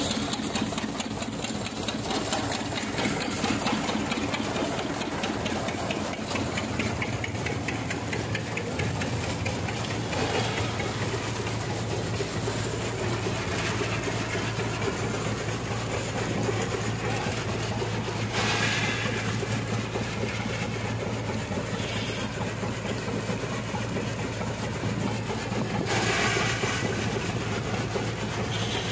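Peanut-cleaning machine running steadily with its engine drive, a low hum under the rattle of peanuts going through it. It gets louder and more rushing for short stretches about 18 and 26 seconds in.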